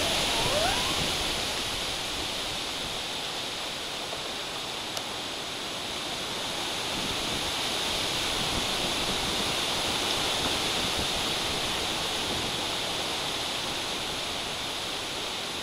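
Steady rush of heavy storm rain and wind through the tree canopy in a tropical storm, swelling a little past the middle.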